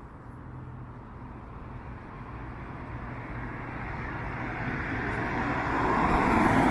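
Street traffic noise with a low engine hum, growing steadily louder as a vehicle approaches.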